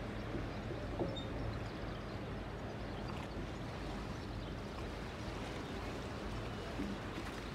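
A ship's engine hums steadily and low over a wash of water and wind noise. A short, faint pitched call comes about a second in.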